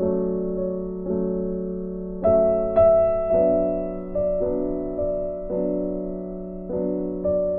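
Background keyboard music: slow chords, each struck and left to fade, a new one every second or so.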